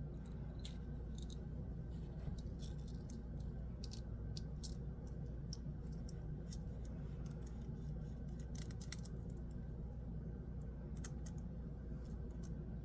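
Faint, scattered light clicks and ticks of the small metal parts of a Gao Studio Magnetic Master 2.0 haptic coin fidget being handled and taken apart, over a steady low hum.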